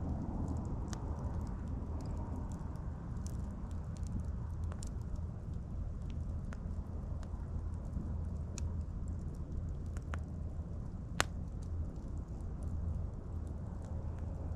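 Wood campfire crackling: scattered sharp pops over a steady low rumble, with one louder snap about eleven seconds in.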